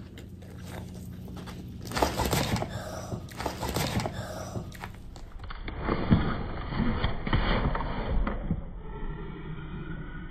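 Irregular scraping and handling noises of food and a paper plate on a table, starting about two seconds in, with a few small knocks.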